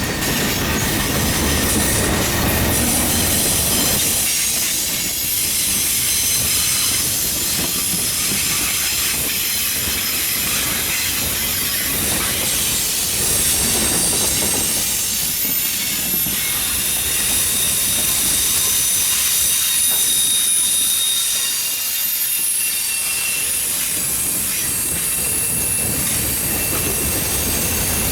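Freight train cars rolling past, with a steady rushing, clattering roar and thin, high-pitched wheel squeal over it.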